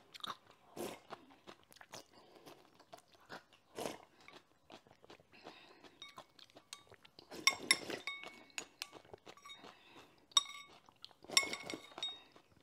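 Close-up eating sounds: crunchy chewing and biting, with wooden chopsticks clinking and ringing against a porcelain bowl several times in the second half.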